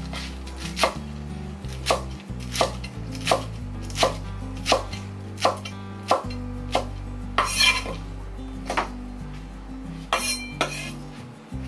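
Chef's knife chopping lettuce on a wooden cutting board, a crisp knock against the board about every 0.7 seconds. It also makes a couple of longer scrapes, near the middle and near the end, as the blade and hand sweep the cut leaves across the board.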